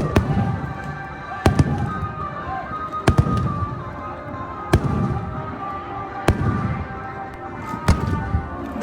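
Fireworks shells bursting with sharp booms about every second and a half, some in quick pairs, each followed by a low rumble, over music.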